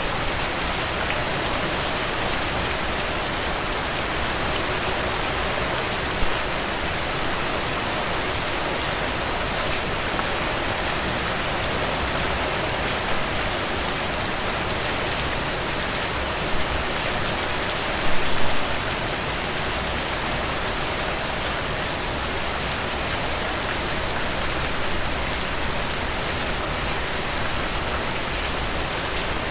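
Steady rain falling on glossy frangipani leaves, an even hiss of many small drop hits, with a few louder drops standing out about six seconds in and again around eighteen seconds.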